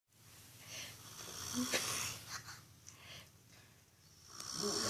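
A person snoring with wheezy, rasping breaths: one long snore in the first half, and another building near the end.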